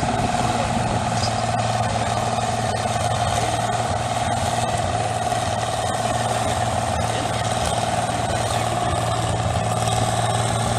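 Antique tractor engine idling steadily, an even, unchanging running sound.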